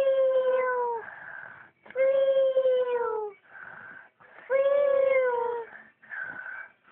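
Two sleeping children snoring in step: a high, whistling snore that falls slightly in pitch and lasts over a second, heard three times about two and a half seconds apart, with a breathy hiss between each.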